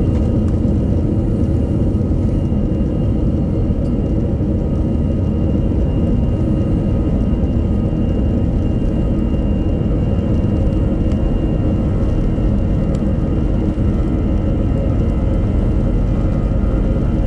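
Airbus A321-200 jet engines running, heard from inside the passenger cabin: a steady loud rumble with several faint steady whining tones above it.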